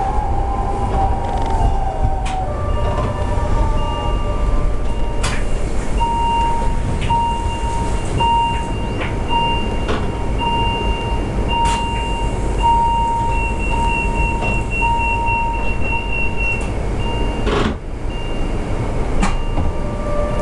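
Chemins de fer du Jura ABe 2/6 electric railcar running, heard from the cab, its motor whine gliding in pitch as it picks up speed at the start. From about six seconds in, a level-crossing warning signal beeps about twice a second for some ten seconds, then stops; a few single clicks sound over the running noise.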